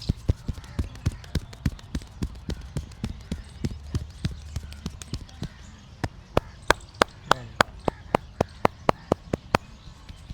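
Barber's hands striking the head in a fast percussive massage, about three to four strokes a second, growing louder and sharper about six seconds in.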